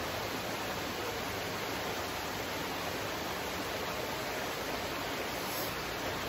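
Flowing stream water, a steady even rush.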